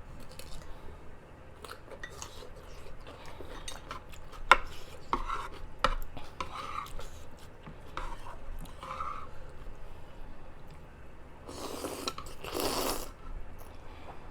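Close-miked eating: utensils clicking against dishware and small wet mouth sounds of chewing and smacking, with a sharp click about four and a half seconds in and two short hissing bursts near the end.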